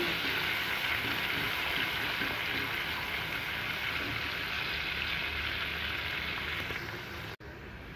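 Chopped onion and green chilli with cumin seeds sizzling in hot oil in a kadhai, a steady frying hiss that fades about seven seconds in.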